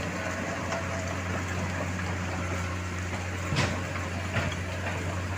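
Heavy diesel engine running steadily at a low, even pitch, with a short clunk about three and a half seconds in.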